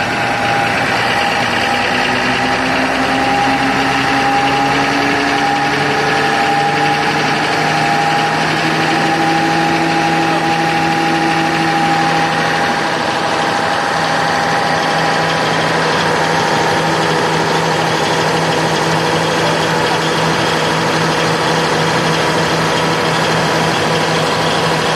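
500 kVA Cummins diesel generator set running under a water-resistance load, its electrodes dipped in a drum of water. It makes a steady engine drone and hum whose tones slide slowly upward over the first dozen seconds, then hold steady.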